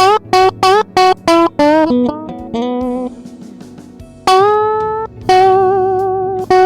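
Blues guitar lick: a quick run of picked notes, each bent up in pitch, then from about four seconds in, longer bent notes held with vibrato.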